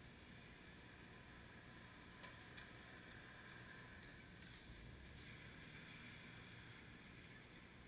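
Near silence: faint street ambience with a few faint ticks in the middle.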